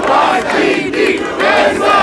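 A street crowd shouting, many raised voices overlapping at once.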